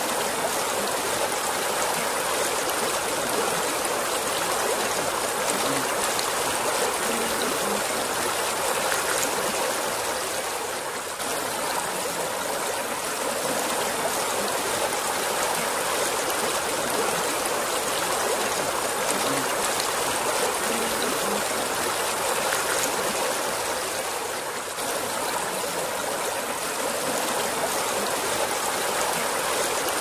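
River water running steadily, an even rush of flowing water that dips briefly twice.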